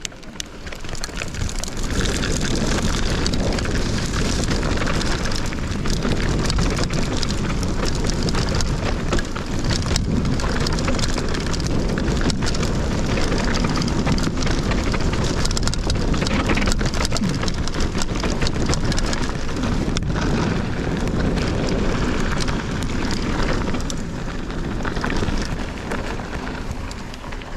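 A hardtail mountain bike riding fast down a dirt trail: a loud steady rush of wind and tyre noise that builds up in the first couple of seconds, full of sharp clicks and knocks from the bike rattling over rough ground, easing off near the end.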